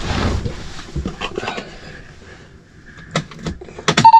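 Scattered knocks and clicks of handling, the loudest a pair near the end, followed by a steady high tone that starts just before the end.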